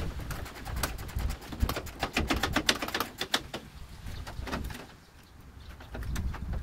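Irregular metal clicks and scrapes from hand work prying a metal bed rail cap off a pickup's bed rail, thickest in the first few seconds, easing off after about four seconds, then picking up again near the end.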